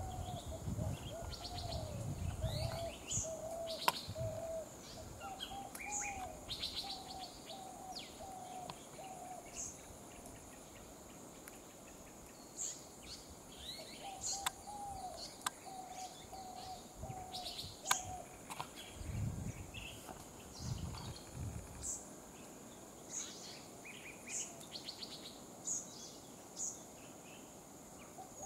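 Wild birds calling in woodland. One bird repeats a short, wavering low note about twice a second in two runs of several seconds, while other birds give scattered higher chirps. Low rumbles come near the start and again about two-thirds of the way through.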